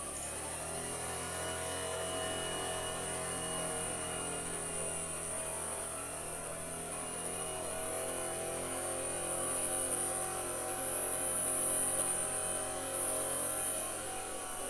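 A steady low engine hum with a high hiss above it, swelling slightly about nine seconds in and easing off again near the end.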